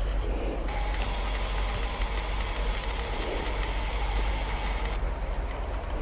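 Camera autofocus motor driving a Sigma 170-500 mm telephoto zoom, whirring as the focus racks from near branches to the far field. The whirr starts abruptly just under a second in and stops abruptly about four seconds later, over a steady low rumble.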